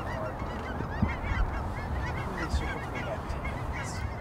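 A large flock of cackling geese calling overhead: a dense chorus of many short, high, overlapping yelps, over a steady low rumble.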